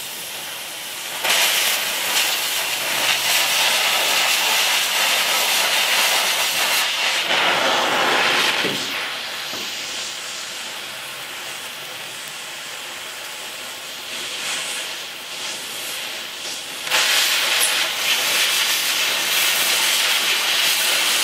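Oxy-fuel cutting torch hissing as it cuts out old bolts in a pickup's bed. The hiss gets louder for two long stretches, from about a second in until about eight seconds and again from about seventeen seconds on, while the cut is going and sparks fly.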